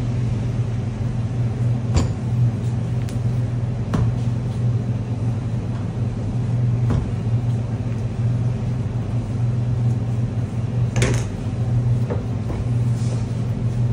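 Steady low machine hum of commercial kitchen equipment, with a few knocks of a wooden rolling pin on a stainless-steel bench as dough is rolled out; the sharpest knock comes about eleven seconds in.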